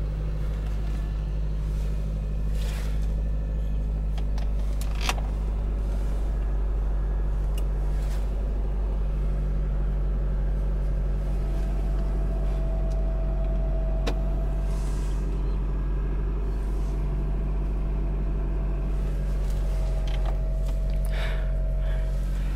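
A 2006 Honda CR-V's K24 four-cylinder engine idling steadily just after a cold start, quiet enough that it is hard to tell it is running. A faint steady whine comes in about halfway, and there are a few light clicks.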